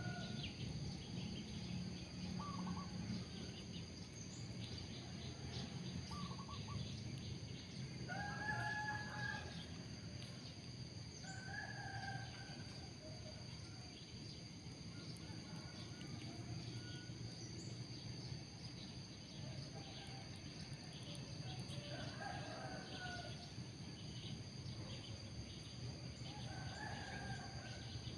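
Outdoor ambience: a bird calling several times, each call about a second long, over a steady high insect drone and a low hum.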